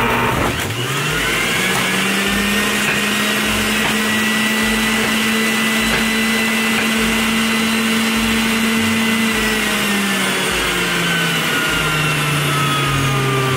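Breville centrifugal juicer's motor running with a loud, steady whine as leftover pulp is pushed through it a second time to extract more juice. The pitch dips briefly about half a second in, then holds, and falls over the last few seconds.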